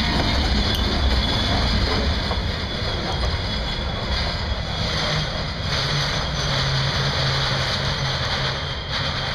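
Freight train's last covered hopper car rolling past on jointed track, its wheels rumbling on the rails, the rumble easing after a couple of seconds as the train pulls away.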